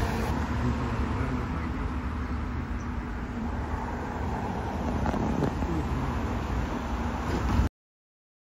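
City street traffic: a steady low rumble of vehicle engines and tyres, which cuts off suddenly to silence near the end.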